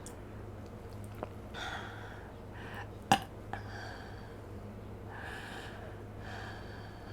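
A person breathing through an open mouth close to the microphone, about five soft breaths, with a few small mouth clicks and one sharp click about three seconds in.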